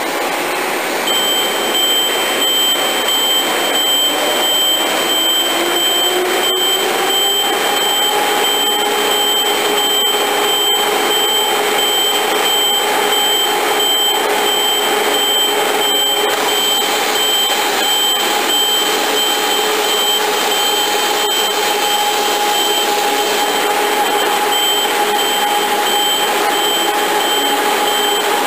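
K5 Compact shrink sleeve seaming machine starting up and running: a motor whine rises in pitch over the first several seconds as it comes up to speed, then holds steady. Under the whine runs a loud rushing hiss with a thin, steady high tone.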